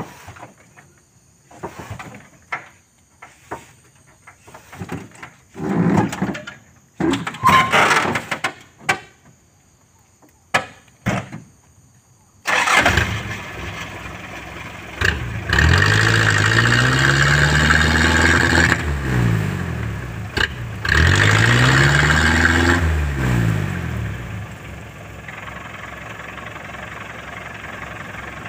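Scattered short knocks and clatters, then a small truck's engine catching suddenly and running. It is revved hard twice, rising and falling in pitch each time, while the loaded truck sits bogged in mud, then drops back to a steady idle near the end.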